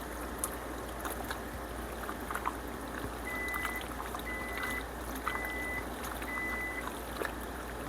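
Creamy pasta sauce simmering in a pan, a steady bubbling hiss with a few small clicks. About three seconds in, an electronic beep sounds four times, about once a second.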